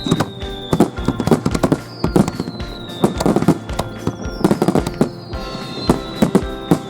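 Aerial fireworks bursting and crackling in a rapid, irregular string of bangs, with a high whistle falling in pitch every second or two, over background music.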